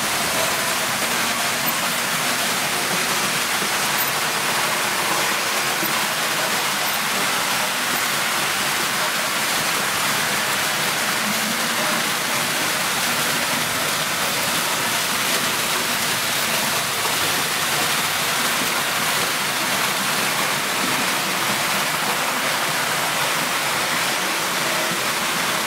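Märklin H0 model trains running on metal track: a steady, even rushing rattle of wheels and motors.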